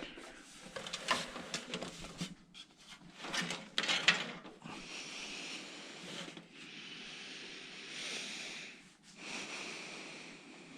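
Handling noises from PC parts being worked on: scattered clicks and knocks for the first four seconds or so, then a steady hiss lasting about four seconds, a brief break, and a shorter hiss.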